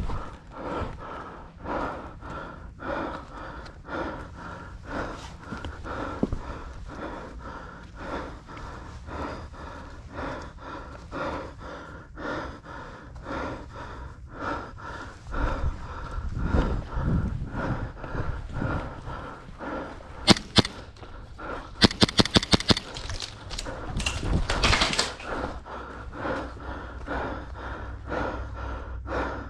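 Heavy breathing and rhythmic footsteps of an airsoft player on the move. About two-thirds of the way in come two sharp airsoft gunshots, then a quick string of about eight more.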